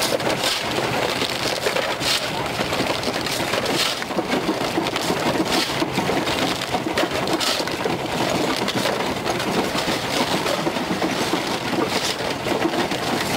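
Engine-driven stone crusher breaking up bricks, a continuous crunching rattle, with a shovel scraping into crushed brick rubble about every one and a half to two seconds.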